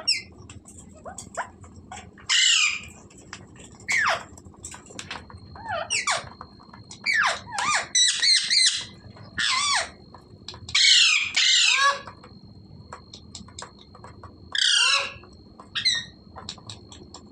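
Parrot squawking: a series of harsh, downward-sliding screeches, some single and some in quick pairs, with short pauses between them.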